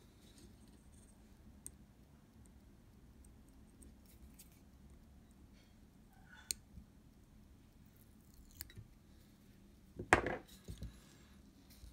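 Small tools and metal camera parts being handled on a workbench: a few faint scattered clicks and taps, then a louder knock and clatter about ten seconds in.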